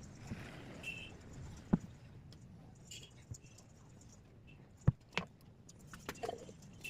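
Sparse, irregular sharp clicks and knocks of small metal parts and hand tools being handled while an angle grinder is taken apart for a bearing change, with two louder knocks about two and five seconds in.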